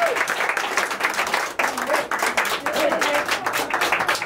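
Audience applauding, with a few voices among the clapping, just after a held note ends with a short downward slide at the start.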